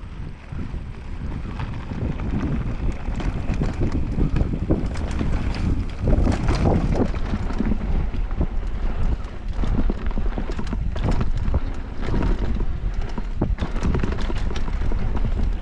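Mountain bike descending a dirt trail: wind buffeting the microphone and tyres rumbling over the ground, building over the first couple of seconds as the bike picks up speed, with many sharp rattles and knocks from the bike over rough terrain.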